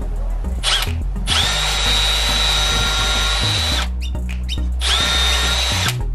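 Milwaukee M12 cordless hammer drill-driver in drilling mode boring pilot holes in wood: a short blip of the trigger, then two runs of high, steady motor whine, the first about two and a half seconds and the second about a second, each rising in pitch as it spins up.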